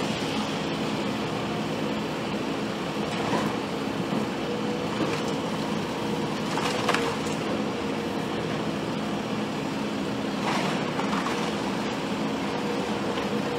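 A demolition excavator's diesel engine running steadily, with a few scattered crunches and knocks from the work.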